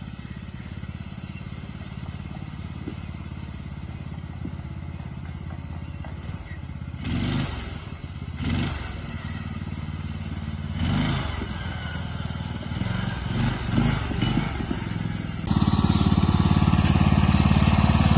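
Small engine of a pulley-swapped MTD racing mower running as it drives, with several louder surges partway through. It turns suddenly louder near the end and stays loud.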